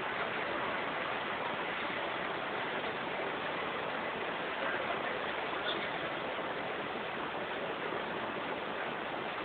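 Steady, even rushing noise of an airport apron, with no distinct engine tone or single event standing out.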